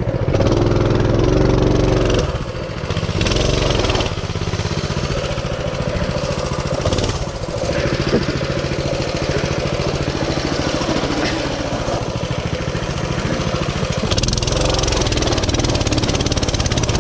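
Mini bike's small single-cylinder engine running while being ridden, its speed rising and falling with the throttle.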